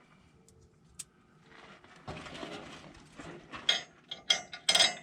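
Small steel hardware clinking: flat washers and a split lock washer handled and slipped onto a U-bolt's threads, with a run of quick metallic clicks in the last second and a half.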